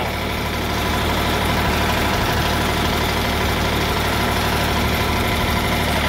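Portable band sawmill's diesel engine running steadily at idle between cuts, an even low drone with no cut under way.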